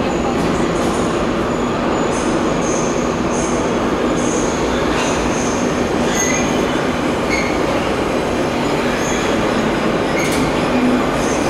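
Soviet-type 81-717/714 metro train pulling into the station along the platform. The steady rumble of wheels on rails runs under short, high-pitched wheel squeals that come and go.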